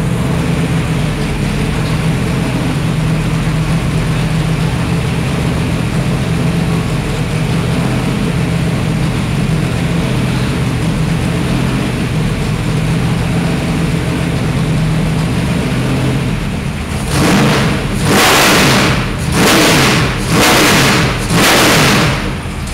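Mopar V8 Hemi race car engine idling steadily, then revved in four short blips of the throttle near the end.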